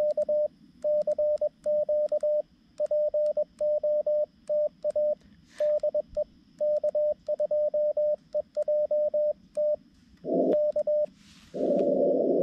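Morse code sidetone from a Xiegu G90 transceiver, sent by hand on a BaMaTech TP-III paddle key: a single steady tone switching on and off in dots and dashes. Near the end the rig drops back to receive and the band noise comes up as a steady hiss.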